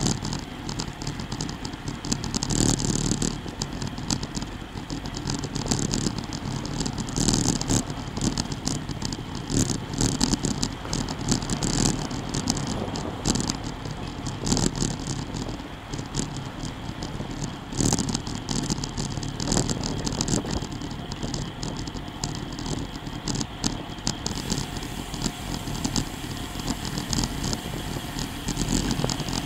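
Wind rushing over a bike-mounted camera's microphone, plus road and frame rattle from a road bicycle at about 20 mph, with irregular loud gusts. Near the end the rider stops pedalling and the rear hub's freewheel clicks as the bike coasts.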